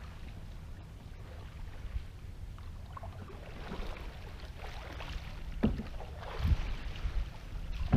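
Canoe paddle strokes swishing through river water, over a low wind rumble on the microphone, with two short low knocks about five and a half and six and a half seconds in.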